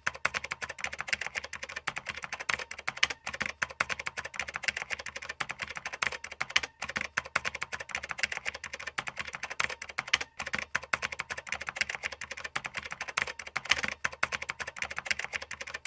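Rapid, continuous keyboard typing clicks, with a few brief pauses, as the text is typed out on screen.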